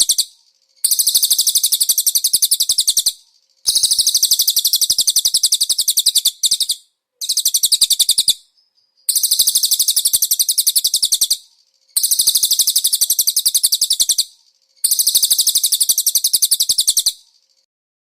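Cililin bird song used as training material for pleci: very fast, high, chattering trills in repeated bursts of about two to three seconds each, about six of them with short silent gaps between, stopping near the end.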